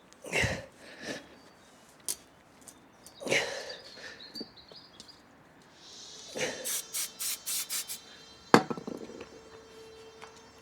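Aerosol spray adhesive being squirted in a run of short hissing bursts, amid scratchy rubbing as carpet is pressed and stretched onto a panel. A single sharp knock, the loudest sound, comes about two thirds of the way through.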